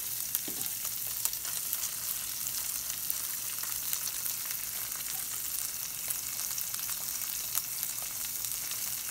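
A brown trout fillet frying in a nonstick pan: a steady sizzle with many fine crackles.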